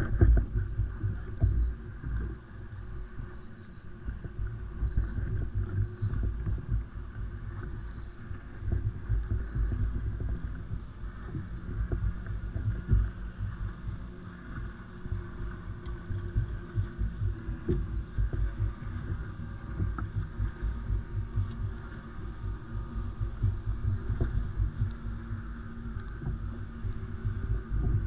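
Irregular low thumping and rumbling over a steady faint hum, picked up by a GoPro on an ocean kayak: the buffeting of wind and water against the camera and hull.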